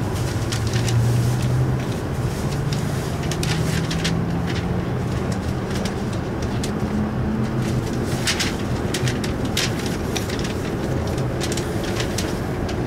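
Inside the cabin of an E5 series Shinkansen pulling out of a station: a steady rumble with a low motor tone that rises in pitch from about two to seven seconds in, as the train gathers speed. Scattered light clicks sound through it.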